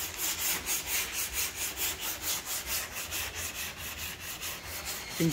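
Body filler on a Daihatsu Cuore's door being sanded by hand, the paper scratching back and forth in quick even strokes, about three a second. This is the flatting of the putty before primer goes on.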